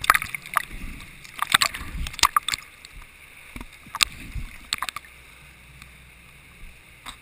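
River water sloshing and splashing against a half-submerged camera at the waterline: a flurry of sharp splashes over the first few seconds, then settling to a low steady rush of current with only an odd splash near the end.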